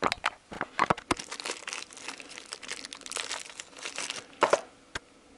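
Clear plastic wrapping around a set of connecting-rod bearing shells being crinkled and handled in the hands: an irregular run of crackles with a few sharp clicks.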